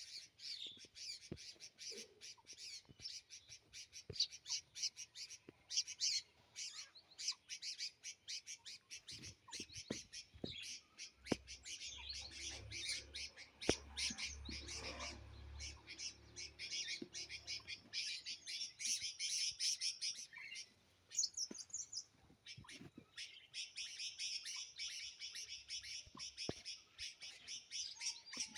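Many small birds chirping and calling together in a dense, continuous chorus of quick, high chirps, with a low rumble for several seconds around the middle.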